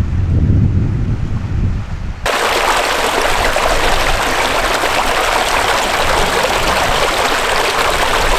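Wind rumbling on the microphone for about two seconds. Then, with a sudden cut, a small mountain stream takes over, rushing loudly and steadily over rocks close by.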